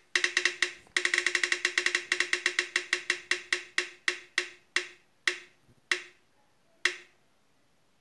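Tick sound effect of a spinning-wheel app on a phone as the wheel spins. The short, pitched ticks come fast at first, then slow and spread out as the wheel coasts to a stop, the last one about seven seconds in.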